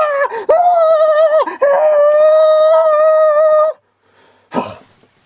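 A long, high-pitched howl: a couple of short cries that dip in pitch, then one steady drawn-out note that breaks off suddenly. A brief soft burst of noise follows.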